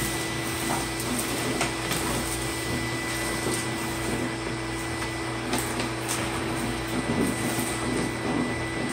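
A shop vacuum running steadily, with a few light knocks and clatters over its noise.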